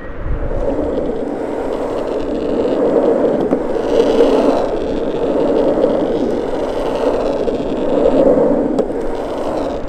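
Cruiser skateboard wheels rolling over asphalt while carving, a steady rumble that rises and eases through the turns.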